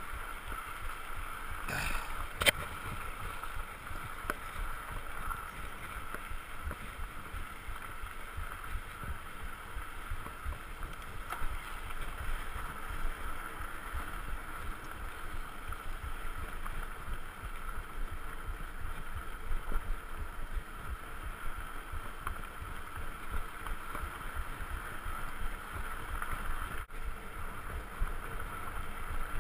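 Mountain bike rolling along a sandy dirt track: tyre rumble and rattle with wind buffeting the camera's microphone, over a steady higher-pitched hum. A single sharp knock about two and a half seconds in.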